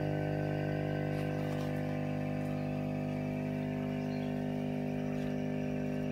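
Steady electric hum of an aquarium air pump supplying the sponge filters: several constant tones with no change in pitch or level.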